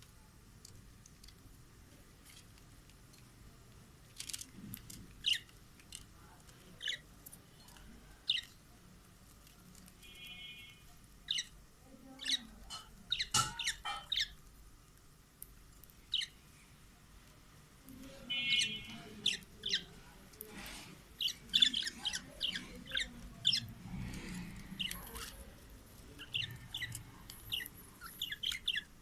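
Budgerigars chirping and squawking in short, high calls, scattered at first and coming thick and fast in the second half.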